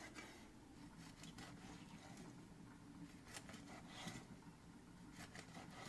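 A handful of faint, soft strokes of a kitchen cleaver slicing a raw fish fillet thinly against a wooden chopping board, over a low steady hum. The cleaver is a bit dull.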